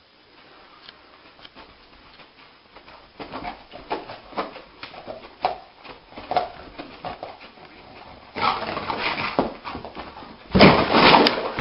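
A dog lying on carpet whimpers in short soft yelps while its paws scuff and scrabble on the floor. It then scrambles up and runs, with dense scrabbling noise. A loud, sudden clatter comes near the end.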